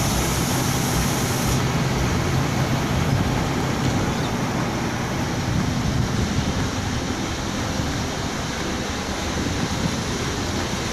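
Steady low rumble and hiss of a diesel passenger train standing at the platform with its engine idling. A high hiss drops away about a second and a half in.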